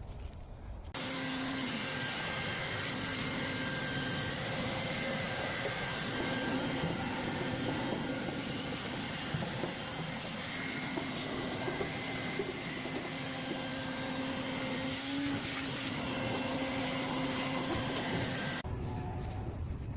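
Vacuum cleaner running steadily with a hiss of rushing air, switched on about a second in and off near the end.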